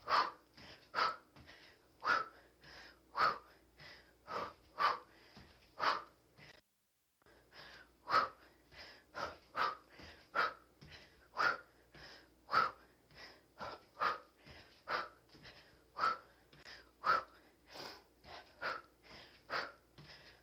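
A woman's heavy, rhythmic breathing during hard kickboxing exercise: short, forceful exhales about one to two a second, in time with the knees and kicks. The sound cuts out completely for about a second around six seconds in.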